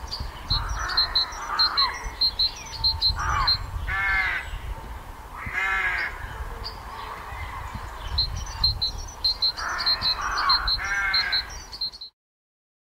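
Wild birds calling: runs of short, high ticking notes repeat quickly, broken by several louder harsh calls, over a low rumble. The sound cuts off suddenly near the end.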